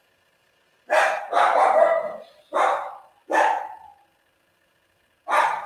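A dog barking, about five barks in an uneven series with a longer pause before the last.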